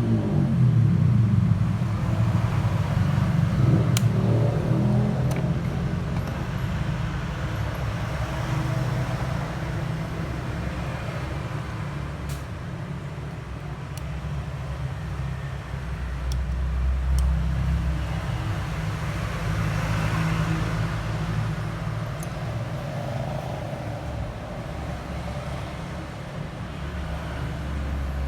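Low, varying rumble of road traffic, with engines swelling and fading as vehicles pass, and a few faint sharp clicks.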